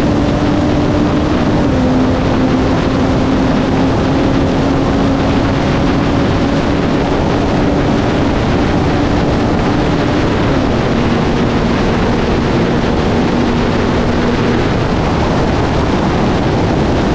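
Car engine under hard acceleration at well over 100 mph, its note climbing slowly and dropping sharply twice as it shifts up a gear. It runs under heavy wind rush on the outside-mounted camera. The engine note fades out a few seconds before the end as the speed falls.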